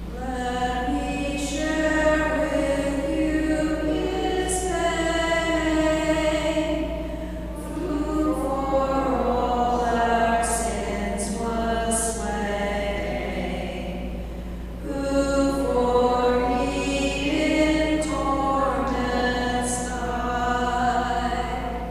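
Slow hymn singing between prayers, in long held phrases with short breaks about a third and two thirds of the way through, over a steady low hum.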